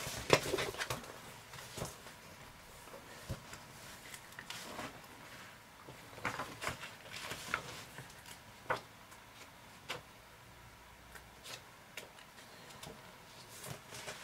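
Scattered light clicks and short rustles from things being handled on a tabletop, in a small quiet room.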